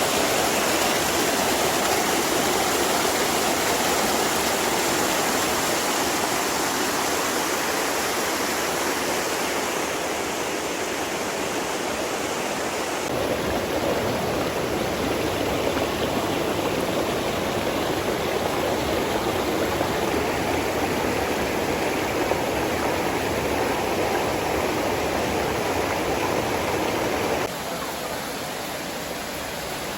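Running water rushing steadily, like a stream or small waterfall. Its tone shifts abruptly about 13 seconds in, and it drops quieter near the end.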